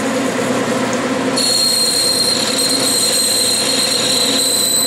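A Clausing metal lathe runs steadily while a chucking reamer is fed into a spinning brass bushing. About a second and a half in, a high, steady squeal starts as the reamer cuts the brass, and it holds on.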